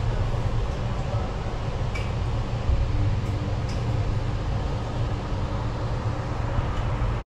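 Alstom Metropolis metro train running slowly as it brakes almost to a stop at the platform: a steady low rumble with a few light clicks. The sound cuts off suddenly near the end.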